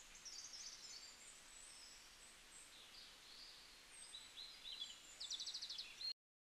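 Faint background of birds chirping over a low hiss, with a quick run of repeated chirps about five seconds in. The sound cuts out abruptly just after six seconds.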